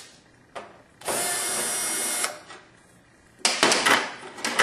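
A cordless power screwdriver runs steadily for just over a second, backing a screw out of the sheet-metal front panel of a battery charger. Near the end comes a short cluster of metallic clicks and rattles as the loosened panel is handled.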